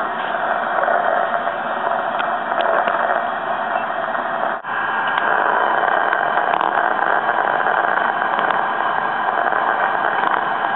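Nerve spikes from a cockroach leg riding a spinning record, picked up by a SpikerBox and played through a small amplifier speaker: a dense, steady static-like hiss with a few faint clicks. It breaks off for an instant about four and a half seconds in.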